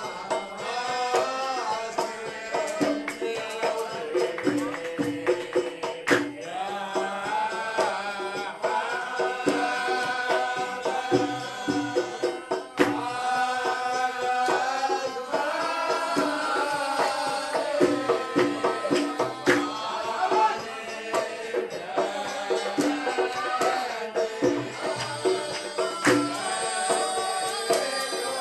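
Background music: a melody over steady percussion, laid over the footage.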